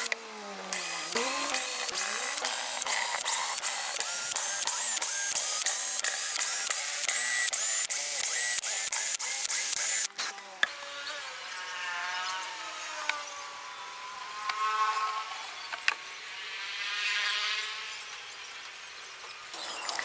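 18 V cordless drill boring small pilot holes in a wooden speaker baffle, its motor run in many short trigger pulls that each whine up in pitch. It stops about halfway, leaving a much quieter stretch with faint warbling tones.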